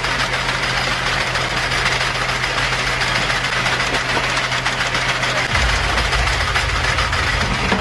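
Steady machinery noise with a low hum, which gets heavier in the low end about five and a half seconds in.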